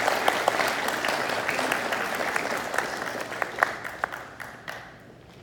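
Audience applauding, the clapping thinning out and dying away over the last two seconds or so.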